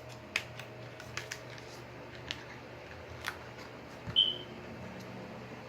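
Scattered light clicks and taps of cosmetic packaging being handled, with a sharp tap and a brief high squeak about four seconds in, over a steady low hum.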